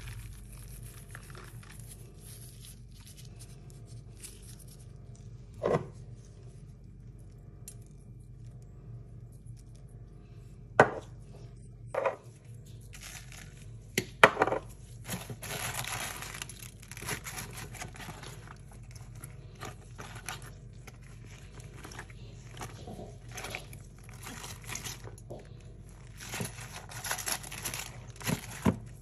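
Raw cabbage halves being handled and turned over in a glass baking dish: crisp leaves rustling and crackling, with a few sharp knocks in the first half.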